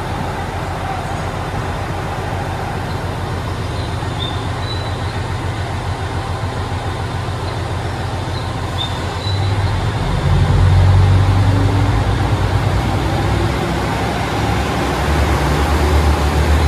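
Diesel railcar train of the Chizu Express HOT7000 series running at the platform with a low, pulsing engine rumble. About nine seconds in its diesel engines throttle up as the train pulls away, and the drone grows louder.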